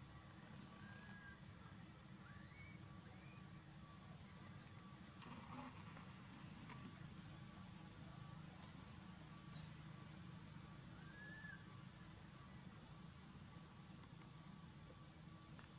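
Faint forest ambience: a steady, high insect drone, with a few short faint chirps and a brief click about nine and a half seconds in.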